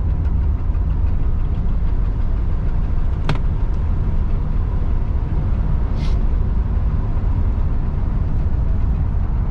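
Classic car being driven, its engine and road noise a steady low rumble heard from inside the cabin. A sharp click comes about three seconds in and a brief hiss about six seconds in.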